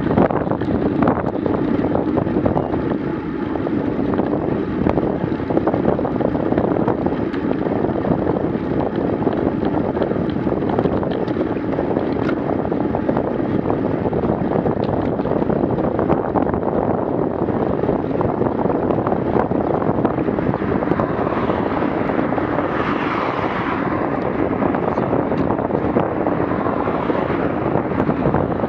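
Steady wind buffeting on a bicycle-mounted action camera's microphone, mixed with tyre and road rumble from the bike riding at about 20 km/h.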